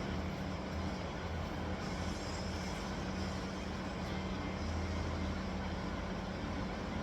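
Steady machine hum with a low drone, running evenly with no distinct knocks or impacts.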